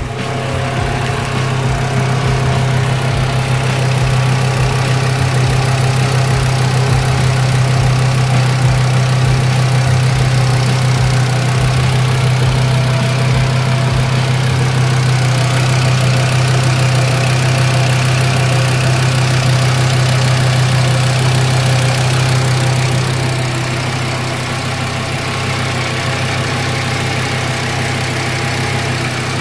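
VW Rabbit's engine idling steadily, heard up close over the open engine bay, getting a little quieter about two thirds of the way through.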